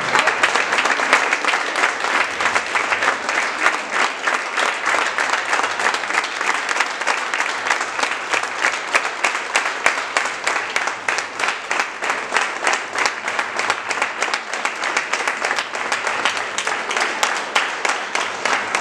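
An audience applauding steadily. In the second half it falls into an even rhythm of about three claps a second.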